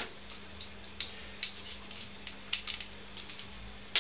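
Irregular light metallic clicks and ticks from small engine parts and hand tools being handled, some in quick clusters.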